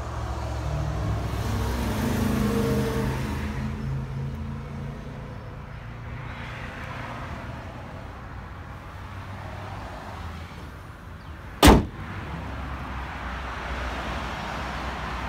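2011 Ford F-250's 6.7-litre Power Stroke turbo-diesel V8 idling steadily under the open hood. A single sharp bang about three-quarters of the way through is the loudest sound.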